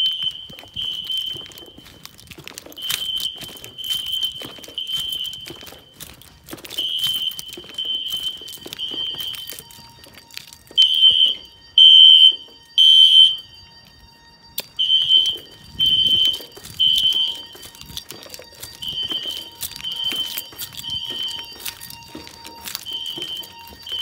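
System Sensor SpectrAlert Classic fire alarm horns sounding a temporal-three pattern: three short high-pitched beeps, a pause, then repeated. The horns have been left on during a walk test of the fire alarm system. The beeps are loudest about halfway through, close to one horn, with handling rustle and footsteps underneath.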